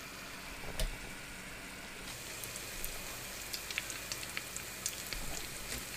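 Sesame-coated dough balls deep-frying in oil in a small pan: a steady sizzle with scattered sharp pops and crackles, which grow busier after about two seconds. A single knock sounds about a second in.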